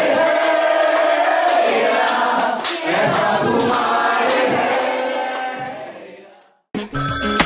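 A young man singing solo without accompaniment, holding long notes. The singing fades out about six seconds in, and music starts just before the end.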